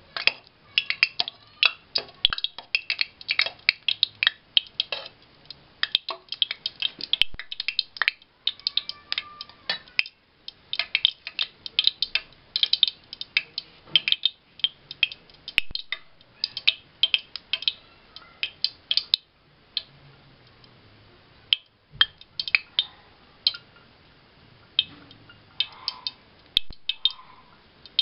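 Ghee melting and heating in a hot kadhai, crackling with many sharp, irregular pops. The pops come thick and fast for most of the time, then thin out to scattered pops near the end.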